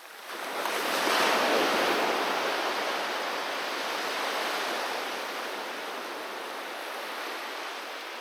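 A wave breaking on the beach: the surf swells up within the first second, peaks, then washes out and slowly fades away.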